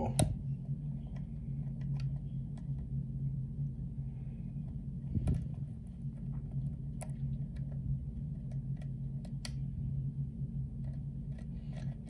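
Light, scattered clicks of a hook pick lifting and setting pin tumblers in a lock cylinder, over a steady low hum.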